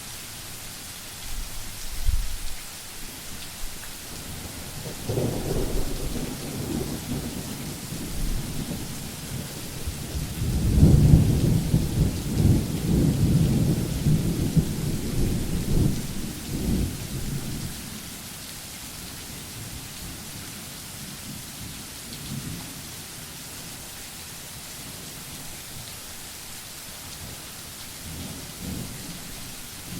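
Thunder rolling over steady rain: a short low rumble about two seconds in, then a long roll that builds from about five seconds, is loudest around eleven seconds and dies away by about eighteen, followed by faint distant rumbles near the end.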